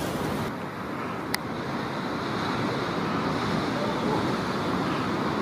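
Storm surf breaking against a sea wall: a continuous rushing noise with wind on the microphone, swelling a little towards the end. A single sharp click cuts through a little over a second in.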